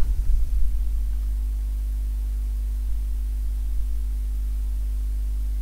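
Steady low electrical hum in the recording chain, a mains-type hum with no speech over it. A few low bumps come in the first second.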